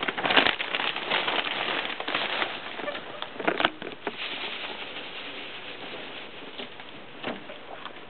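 Dry hay rustling and crackling as it is handled and stuffed into a wire hay rack, loudest in the first second and again at about three and a half seconds, with guinea pigs squeaking.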